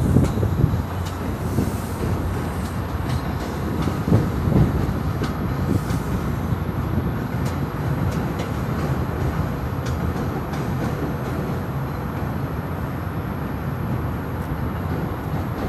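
A train running past: a steady rumble of wheels on rail with a few light clicks.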